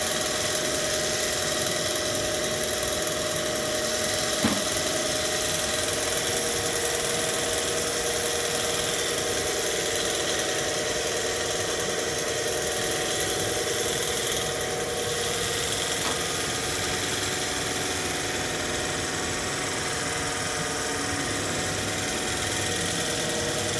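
Foam paint roller machine running steadily: an even mechanical hum with a held whine and a hiss, and a single short knock about four seconds in.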